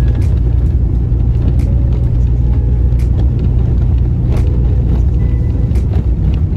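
Car driving over a rough dirt road, heard inside the cabin as a steady low rumble of engine and tyres, with a faint tick about every second and a half.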